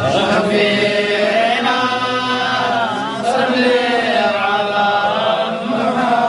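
A man's voice chanting a devotional salutation on the Prophet (durood) into a microphone, drawn out in long held notes that waver and bend up and down in pitch, unaccompanied.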